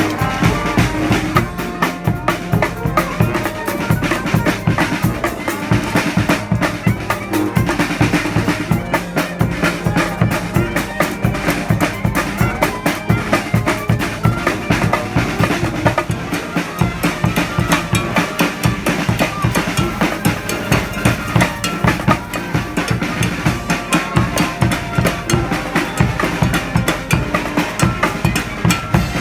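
Street brass band playing, the drums to the fore: bass drum and snare drum beating a dense, driving rhythm, with horns holding notes over it.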